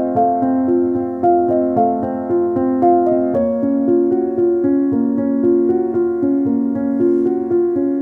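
Background piano music, a steady run of repeating notes.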